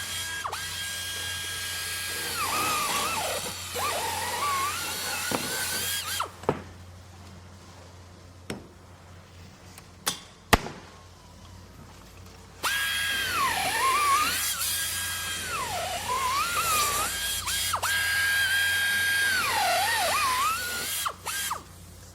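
Power drill running at high speed, its whine repeatedly dropping in pitch and recovering as the bit bites in under load. There are two long bouts of drilling, with a pause of several seconds between them broken by a few sharp knocks.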